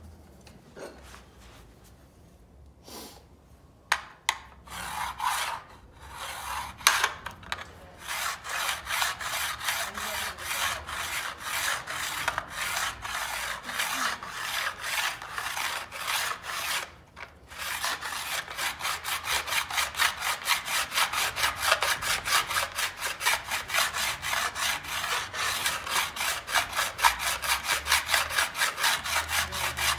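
Hand file scraping back and forth on an aluminum sliding-door track, filing down divots so the door's rollers won't bump along it. After a few quiet seconds the strokes start irregularly, settle into a steady rhythm, pause briefly past the middle, then resume faster and even.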